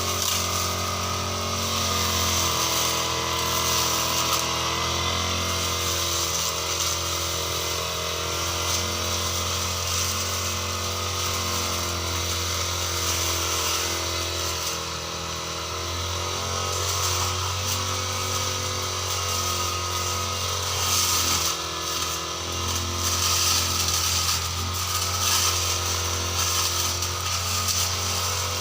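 Petrol grass cutter (brush cutter) engine running steadily while cutting grass, its engine speed shifting a couple of times as the throttle changes.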